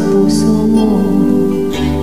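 Karaoke song: a woman singing a slow ballad over a backing track with guitar, mostly on long held notes.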